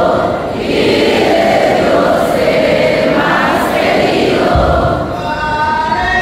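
A large crowd singing and chanting together. About four and a half seconds in, steady held musical tones come in over the voices.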